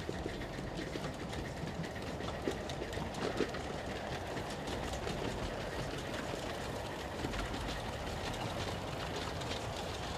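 A passenger-hauling live-steam model train running on 5-inch gauge track. The running noise is steady, with a scatter of small wheel clicks and rattles.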